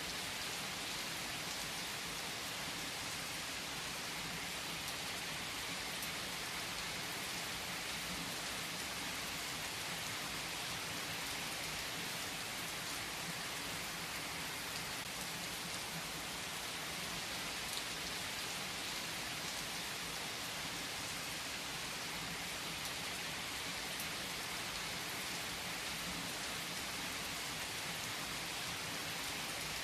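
Steady rain falling: an even hiss of rain with a few sharper drops now and then.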